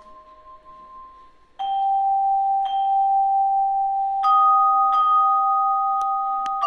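Instrumental introduction of a song: clear bell-like notes struck one at a time and left ringing. One note fades quietly at first, then the music comes in much louder about one and a half seconds in, with a new note every second or so.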